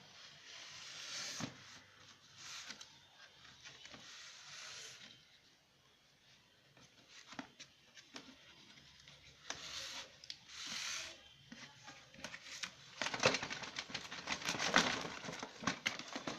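Packaging of a boxed toy being handled and opened: irregular rustling and tearing with scattered clicks and knocks, getting busier and louder in the last few seconds.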